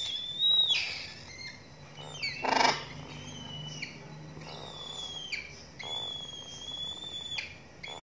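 Yellow-crested cockatoo chick calling: several long, high, steady cries of about a second each, with one louder, harsher squawk about two and a half seconds in.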